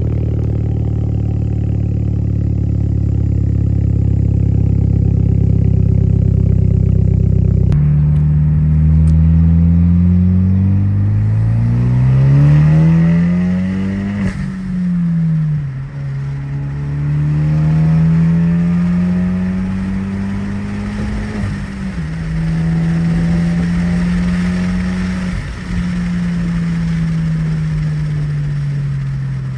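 Hyundai Genesis Coupe engine under acceleration through a manual gearbox. A steady drone gives way after about eight seconds to revs climbing hard, dropping sharply at a gear change, climbing again to a second shift, then holding and falling away near the end. It pulls cleanly at full throttle without breaking up now that worn, over-gapped spark plugs have been replaced.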